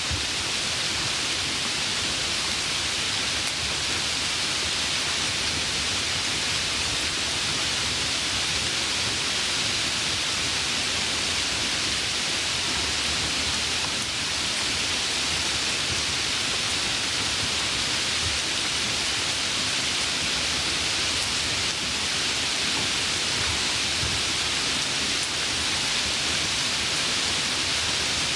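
Light rain falling: a steady, even hiss of rain with no breaks.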